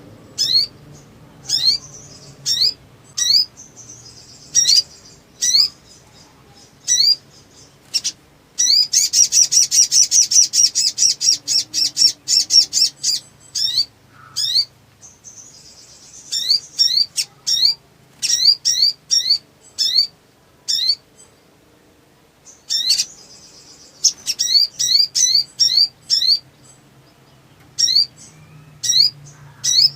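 Olive-backed sunbird (sogon) calling: sharp, high, upward-sweeping chirps in quick irregular runs, breaking into a fast, loud rattling trill about nine seconds in that lasts some four seconds.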